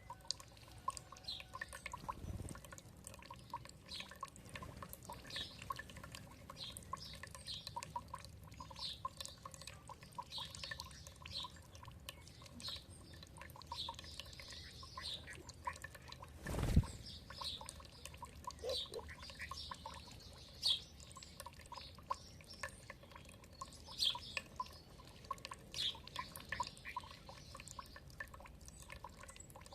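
Small birds chirping in short scattered calls over steadily trickling, dripping water, with one louder sharp knock or splash about seventeen seconds in.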